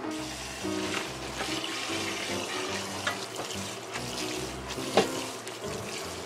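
Tap water running onto cooked noodles in a stainless-steel mesh colander while a hand rubs and squeezes them, rinsing the noodles. A single sharp knock about five seconds in.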